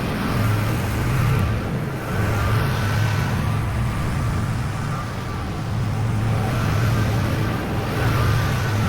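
Zero-turn riding mower engine running steadily under load while cutting grass, its level swelling and easing a little.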